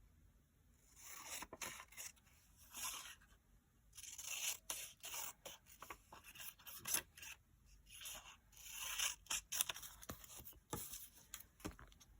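Paper and stickers being handled for diary decorating: a series of short rustling, scraping swishes with sharp snips and clicks, like scissors cutting paper and stickers being peeled. The sounds come in bursts with brief pauses between them.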